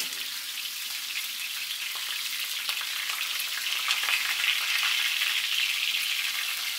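Salmon fillets frying in hot oil in a cast-iron skillet, pressed down with tongs: a steady sizzling hiss with scattered small pops, growing a little louder about halfway through.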